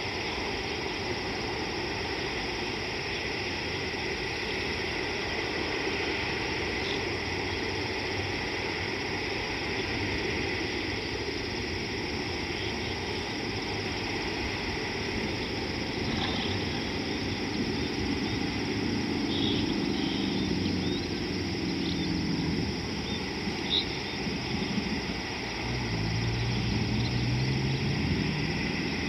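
Steady hiss of open bush ambience, with a few brief high chirps midway. A low engine hum comes in past the middle and grows stronger near the end.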